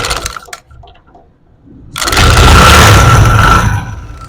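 Motorcycle single-cylinder engine being started: a short first attempt at the start, then about two seconds in it catches and runs loud for a couple of seconds before easing down toward idle.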